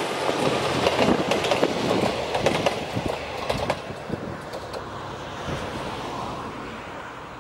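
Steel wheels of a passing train's last coach, an old Oha 46 passenger car, clacking over rail joints. The clacks are densest in the first few seconds, then thin out and fade as the train moves away.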